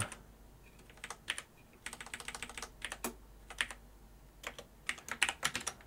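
Computer keyboard keys being tapped while text is edited: irregular sharp clicks, some coming in quick runs.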